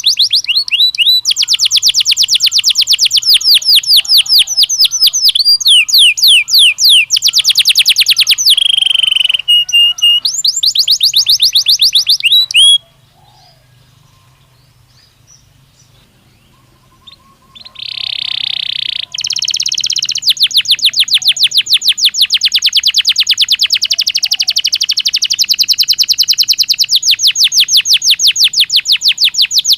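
Belgian canary singing: long runs of rapid trilled notes, broken by a pause of about four seconds near the middle, then a short harsh, buzzy phrase and another long fast trill.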